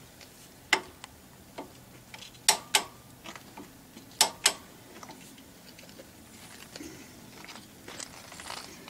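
Hammer striking a heavy-truck rear wheel hub in a few sharp metallic knocks, the loudest in two quick pairs about two and a half and four seconds in. The hub is tapped while its adjusting nut is torqued, to settle the wheel bearings as the preload is set.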